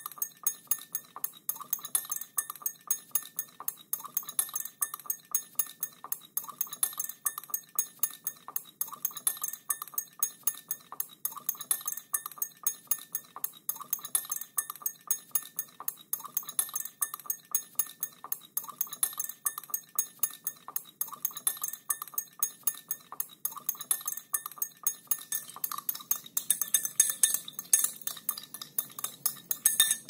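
A spoon stirring water in a drinking glass, clinking against the glass in a steady run of about four clinks a second, with the glass ringing faintly under it. The clinks get louder near the end.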